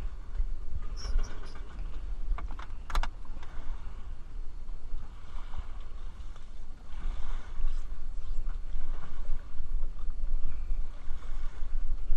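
Steady low rumble with water lapping around a boat trailer standing in shallow water. A few sharp clicks and knocks come about one to three seconds in.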